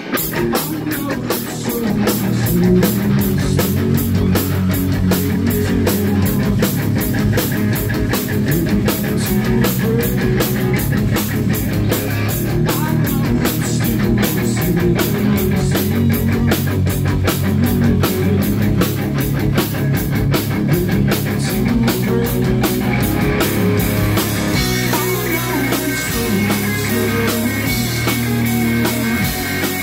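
Live rock band playing: distorted electric guitar, bass guitar and a drum kit keeping a steady driving beat.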